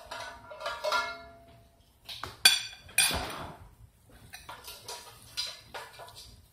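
A metal spoon clinks twice against a plate, about two and a half and three seconds in, then faint handling and rubbing noises as raw pork chops are rubbed with dry seasoning. Near the start there is a brief pitched tone.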